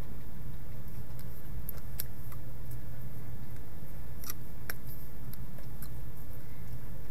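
Steady low background hum with no speech, broken by a few short soft clicks: one about two seconds in and two close together around four and a half seconds.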